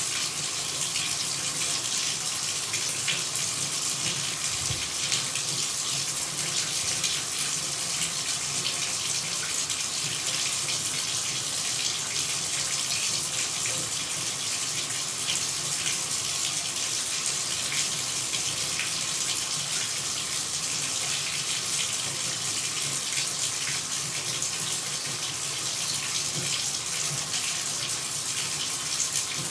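Running water pouring and splashing in a steady, hissing rush.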